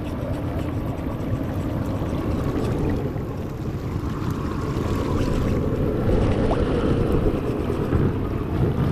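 Shallow mountain stream rushing over rocks, a steady, loud water noise.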